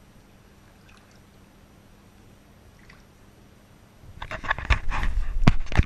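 Shallow bathwater in a tub splashing and sloshing as a small puppy is handled in it, with irregular knocks and bumps. Near quiet for the first four seconds, then the splashing starts suddenly and gets loud.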